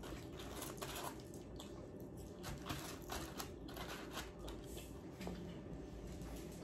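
Faint eating sounds: scattered soft clicks and rustles as fries are picked out of a foam takeout container and chewed.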